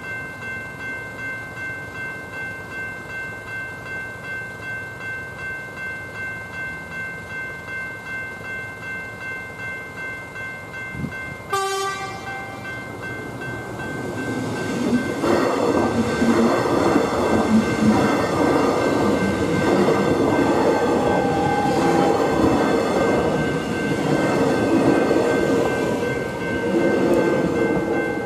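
Level crossing's electronic E-Bells ringing steadily at about two strokes a second. About eleven seconds in a train sounds a short horn blast, and from about fourteen seconds an electric suburban train passes loudly over the crossing, its running noise covering the bells until near the end.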